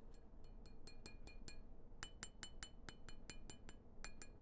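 A rapid run of light, ringing clinks, about five a second, in three bursts with short pauses between; the second burst rings a little higher than the first.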